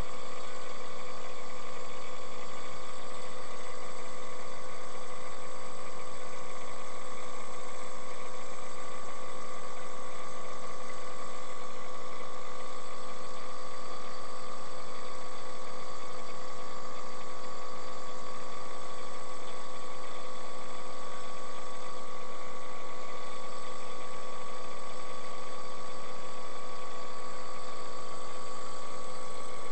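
Steady drone inside a vehicle's cabin while it creeps along in slow traffic, with a constant fixed-pitch whine on top that never changes.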